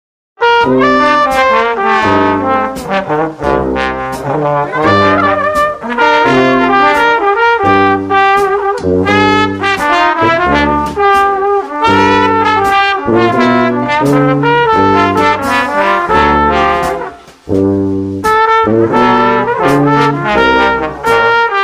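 Lively instrumental background music with a steady, bouncing bass beat. It starts about half a second in and breaks off briefly about three-quarters of the way through.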